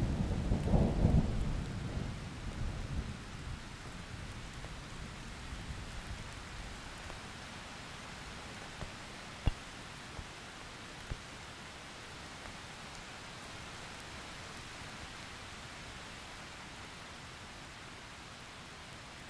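A low thunder rumble dying away in the first few seconds, then steady rain that slowly fades out, with a few faint ticks about halfway.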